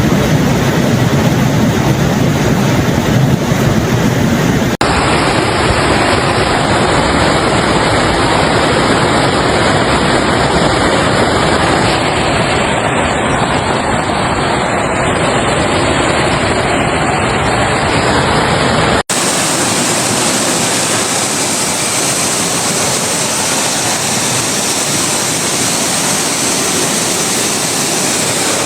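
Rushing floodwater: loud, steady water noise with no distinct events, changing abruptly about 5 and 19 seconds in where one clip gives way to the next.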